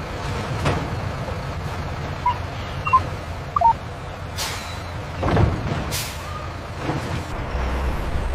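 Machinery with a steady low hum, broken by several sharp hisses and knocks, and a few short high beeps in the first half.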